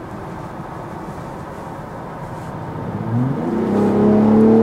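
Ford Raptor's 3.5-litre twin-turbo EcoBoost V6 with its active exhaust in normal mode: a steady low rumble with road noise, then about three seconds in the engine pitch rises quickly and it gets louder as the truck accelerates hard to about 4,000 rpm, holding the high note to the end.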